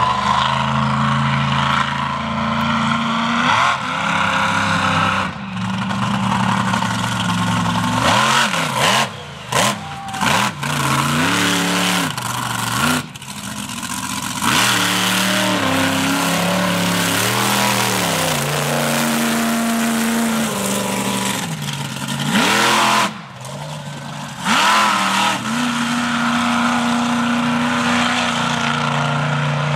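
Monster truck engines revving hard, their pitch rising and falling again and again as the trucks spin and drive across dirt, with several sudden drops and jumps in loudness.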